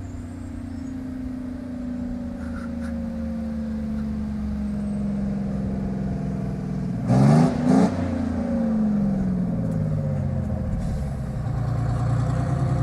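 Old two-stroke Detroit Diesel engine in a vintage bus running with no exhaust system, a loud unmuffled note that sinks slowly in pitch as the bus approaches. About seven seconds in come two brief loud blasts, and the engine pitch sweeps up and down before settling.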